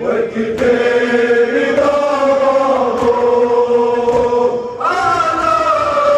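Men's voices chanting a Kashmiri noha, a Muharram lament, in long held notes that step in pitch every second or two. Regular thuds of mourners beating their chests in unison (matam) keep time, about one every 1.2 seconds.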